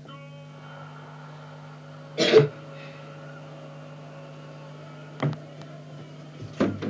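A person's single loud cough or throat-clear about two seconds in, then two sharp knocks, one about five seconds in and one near the end, over a steady low hum.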